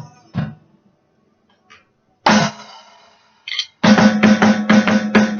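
A drum kit being played. There is a single hit, a pause, then a loud hit about two seconds in that rings on, and near the end a quick, even run of drum strikes, about five a second, that stops and rings out.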